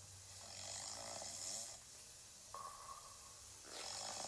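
Cartoon-style snoring for a sleeping bear: a rasping snore, a short whistle, then another snore beginning near the end.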